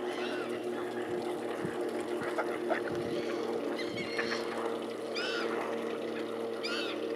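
A flock of waterbirds calling, gulls, ducks and mute swans together, with short high arched calls repeating every second or so. A steady low hum runs underneath.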